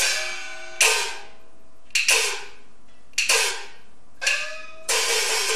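Chinese opera percussion: four single gong-and-cymbal strikes roughly a second apart, each left to ring out with a slightly falling pitch, before the full percussion ensemble starts playing again near the end.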